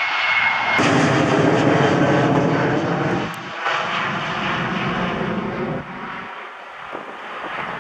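Boeing 737-700's CFM56-7B jet engines at climb power as the airliner passes low overhead climbing out: a loud jet roar with a steady high whine. About a second in it cuts abruptly to a fuller, louder roar, which eases off over the last few seconds as the aircraft moves away.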